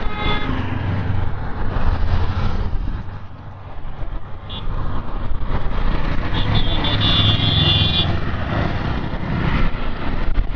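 Road traffic noise, with vehicle engines running and passing. A vehicle horn sounds for about a second and a half, about two-thirds of the way through.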